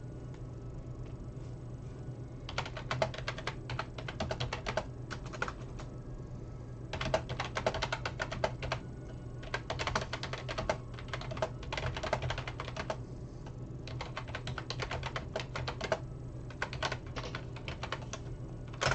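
Typing on a computer keyboard in several quick bursts of key clicks with short pauses between, over a steady low hum.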